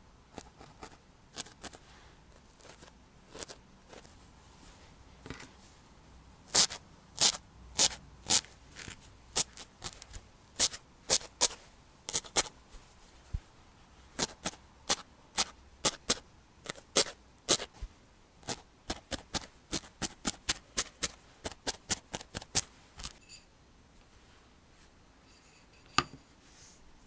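Felting needle stabbing repeatedly into a ball of wool held over a burlap pad: a run of sharp, dry clicks at about two to three a second, faint at first and loudest from about a quarter of the way in until near the end. One more single click near the end.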